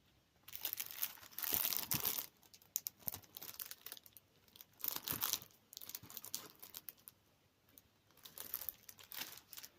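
Crinkly packaging being handled, crinkling and rustling in irregular bursts: a long stretch early on, shorter ones in the middle, and another cluster near the end.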